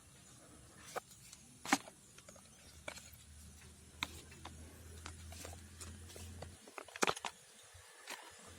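Scattered light clicks and taps from handling a smartphone's box and its contents. One sharper click comes about two seconds in, and a quick cluster of clicks comes near the end.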